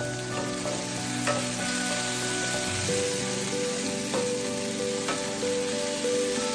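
Vegetables sizzling in a hot skillet as a wooden spatula stirs them, with a few sharp knocks of the spatula against the pan. Background music with held notes plays along.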